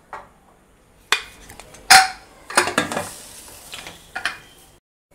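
Aluminium pressure cooker being closed: a series of metal knocks and clanks as the lid is set on and turned to lock. The loudest clank, about two seconds in, rings briefly, and a cluster of rattling clicks follows.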